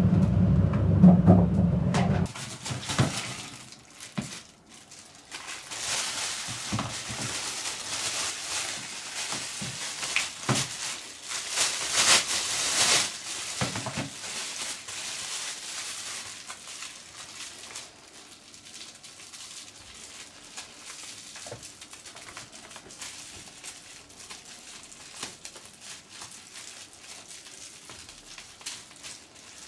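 Thin plastic film tube crinkling and rustling as it is pulled by hand through the opening of a LittyCat cat-litter disposal bin, with scattered plastic clicks; the rustling is loudest in the middle and softer near the end. It opens with about two seconds of low-pitched handling noise.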